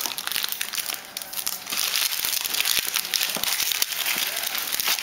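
Foil wrapper of a Topps Luxury Box trading card pack crinkling and tearing as hands open it: a dense, crackly rustle with a short lull about a second in.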